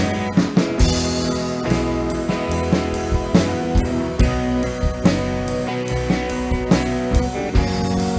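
Live worship band playing an instrumental passage: electric guitar, bass and drum kit with steady, regular drum hits under held chords.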